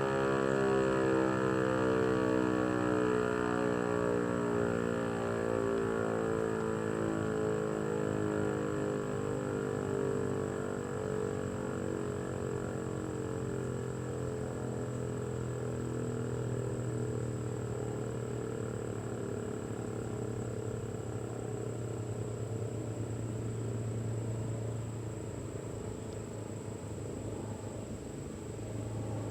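ASC T-128 electromechanical warning siren winding down at the end of its Alert signal, its tone sliding slowly lower and fading as the rotor coasts to a stop.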